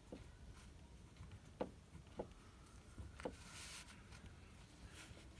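Faint ballpoint pen writing on paper: a few soft ticks and a short scratching stroke a little past halfway, over quiet room tone.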